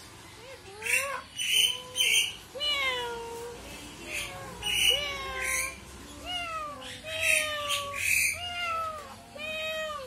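Crested myna calling in a rapid, varied run of about a dozen short whistled notes, some gliding up and some down, mixed with harsh rasping bursts.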